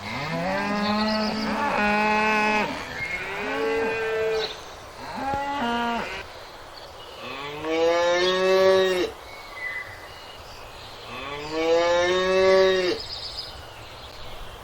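Cattle mooing: about five separate calls, each bending up and then down in pitch. The longest and loudest moos come past the middle and near the end.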